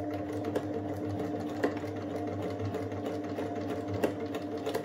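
Electric household sewing machine running steadily as it stitches through fabric, a steady hum with rapid needle ticking. It is sewing a few stitches across a cut side seam to lock it closed.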